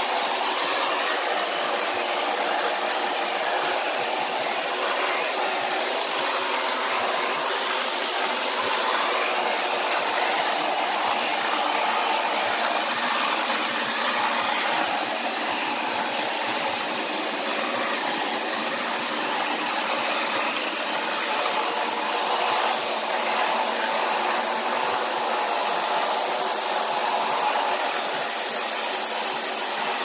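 Cordless stick vacuum cleaner running steadily, its motor giving a constant loud rushing hiss as the brush head is drawn over a minipig's bristly coat.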